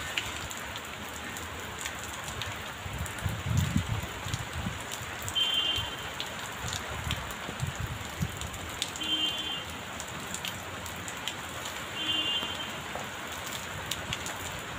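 Steady rain falling on a wet paved rooftop terrace and potted plants, with scattered drop clicks. A few low rumbling swells come about four seconds in, and a short high chirp sounds three times, a few seconds apart.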